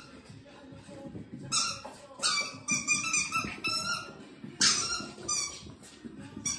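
Shiba Inu–Shih Tzu mix puppy giving a run of about seven short, high-pitched yips during a burst of excited play.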